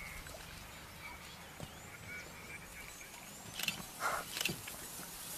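African wild dogs giving faint, high-pitched twittering calls, with several short calls clustered near the end.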